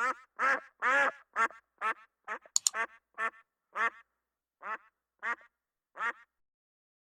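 Duck quacking: about a dozen short quacks, coming quickly at first, then more spaced out, and stopping about six seconds in. A few sharp clicks sound in the middle.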